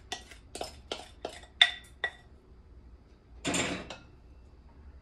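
A wooden spoon knocks against glass mixing bowls about three times a second, with a couple of ringing glassy clinks, as batter is scraped from one bowl into the other. A brief scrape follows a little past three seconds in.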